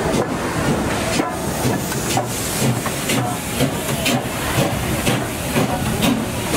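NSW C36 class steam locomotive 3642 hissing steam, with a sharp pulsing beat about twice a second.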